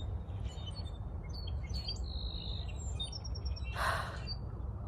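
Small birds chirping and calling: scattered high chirps, one held whistled note about two seconds in, and a quick run of short repeated notes a second later, over a steady low rumble. A brief rush of noise comes a little before the end.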